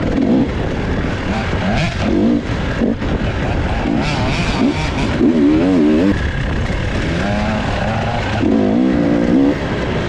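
Husqvarna two-stroke dirt bike engine revving hard, its pitch rising and falling again and again as the throttle is worked.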